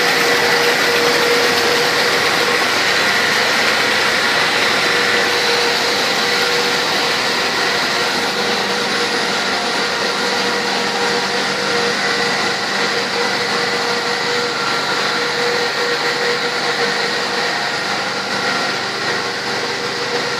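Industrial machine running steadily: a continuous mechanical hum and hiss with a few constant whining tones over it, easing slightly near the end.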